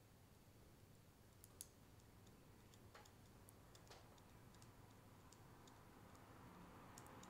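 Near silence with a few faint, irregular small clicks and ticks.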